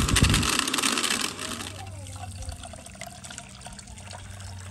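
Electric blender running, mixing nance juice with sugar, switched off about a second in. Then, near the end, juice poured from the blender jar through a strainer, trickling.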